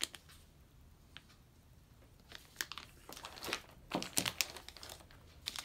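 Thin plastic sleeve crinkling and rustling, with a few light clicks, as a chisel in its sleeve is handled and slipped into a pocket of a leather tool roll. The sounds come in short scattered bursts, most of them in the second half.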